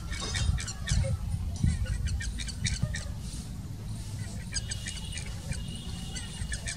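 Small birds chirping and calling in quick, repeated short notes, with one steady high call held through the last couple of seconds, over a constant low rumble.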